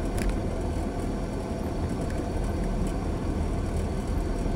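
Car driving slowly along a street, heard from inside the cabin: a steady low rumble of engine and tyres on the road.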